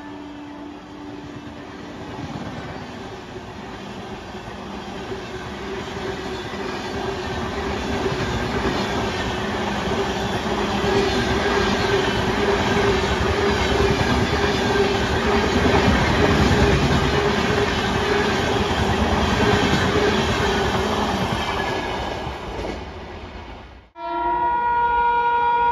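Coaches of the Rajdhani Express passing at speed: a steady rushing rattle of wheels on rail with clickety-clack, growing louder to a peak midway and easing off. Near the end it cuts off abruptly and a steady multi-tone train horn starts sounding.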